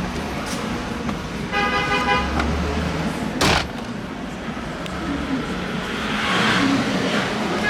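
Street traffic: a car horn sounds for about a second, a sharp bang follows about a second later, and traffic noise swells near the end.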